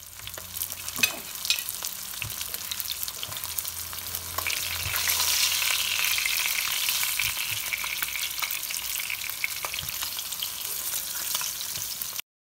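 Tilapia steaks sizzling and crackling as they fry in oil in a nonstick frying pan, with a few sharp clicks as the pieces are turned over with a fork. The sizzle grows louder about five seconds in and cuts off abruptly just before the end.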